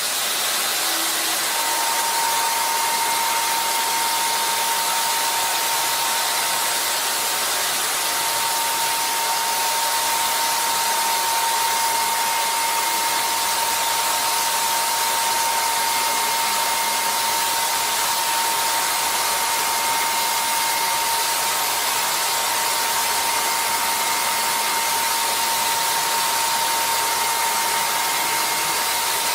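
Machine tool running steadily: a constant whine over a dense, even hiss.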